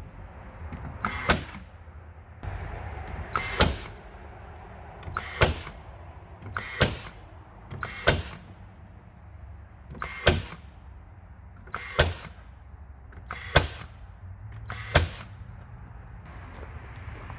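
Nine sharp knocks about every one and a half to two seconds, typical of nailing during exterior repair work.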